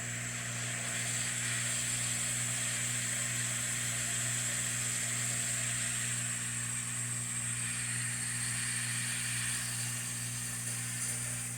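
Hot-air rework station blowing steadily on the motherboard at 400 degrees: a steady airy hiss over a low hum, as it heats the thick board to free the BIOS chip.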